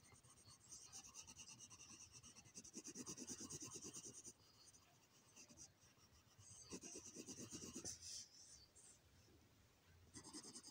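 Faint scratching of a red colouring pencil shading back and forth on a paper worksheet, in three spells of quick strokes with short pauses between.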